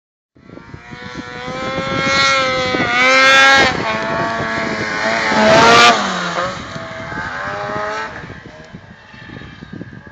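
Ski-Doo Blizzard snowmobile with the 600 H.O. SDI two-stroke twin, revved up twice to loud peaks and then dropping back toward idle.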